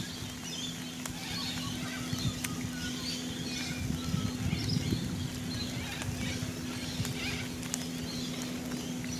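Quiet outdoor background: scattered short bird chirps over a steady low hum, with soft, irregular low handling or chewing noises in the middle as the fried cod is tasted.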